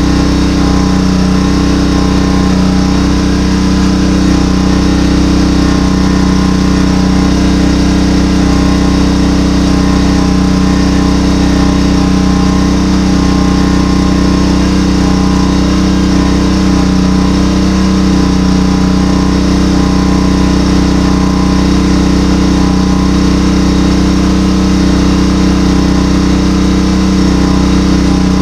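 Small engine of a jaws-of-life hydraulic power unit running steadily at a constant speed.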